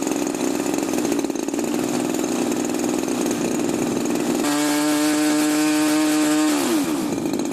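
Cockpit noise of a Christen Eagle aerobatic biplane in flight: a loud, steady buzzing drone. About halfway through, a strong steady tone comes in and holds for about two seconds, then slides down in pitch and drops away.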